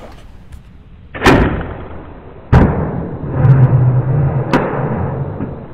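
A black bear knocking a chained steel bait barrel about: two loud knocks about a second apart, then a low, drawn-out scrape with another sharp knock near the end.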